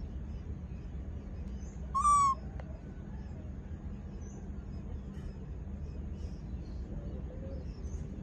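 Baby macaque giving one short, high coo call about two seconds in, slightly falling in pitch, over a steady low hum.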